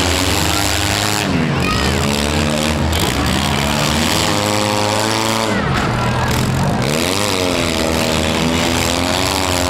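Several four-cylinder demolition derby car engines revving at once, their pitch rising and falling over a second or two.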